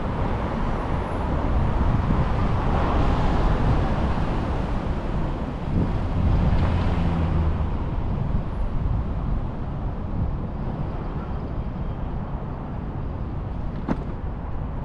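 City street traffic: vehicles passing, louder in the first half, with an engine rumble swelling about six to seven seconds in.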